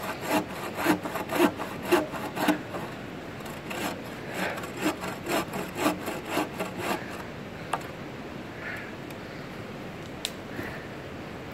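Bow saw cutting through a felled tree trunk in rhythmic back-and-forth strokes. There is a short pause about three seconds in, and the sawing stops about seven seconds in.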